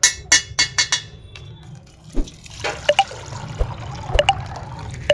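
Crinkly plastic crackling with a quick run of sharp snaps, then water sloshing and splashing as a water-filled plastic pouch is squeezed and burst open.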